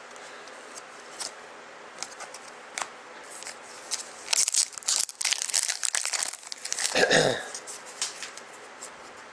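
Foil trading-card pack wrapper being torn open and crinkled by hand, with scattered small clicks and handling of cards, the rustling busiest in the middle. A short voice-like sound comes about seven seconds in.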